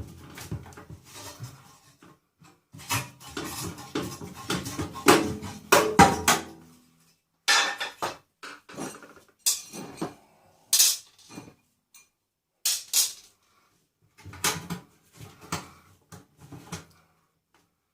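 Metal parts and hand tools clinking and clattering as a microwave oven is stripped for scrap: a string of sharp metallic clicks and knocks, busiest in the first seven seconds and then more spaced out.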